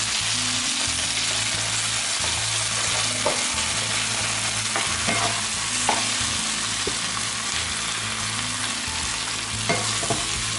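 Shrimp and garlic chive flowers sizzling in a hot nonstick frying pan as water is poured in at the start and the food is stirred with a wooden spatula. The spatula knocks against the pan a few times.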